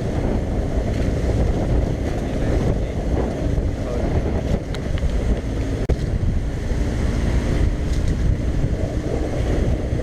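Heavy wind buffeting the microphone on an open boat, over a steady motor drone and splashing water.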